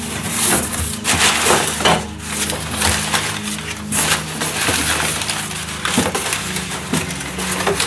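Irregular crinkling and rustling as parts and their packaging are handled and unwrapped, in short uneven bursts.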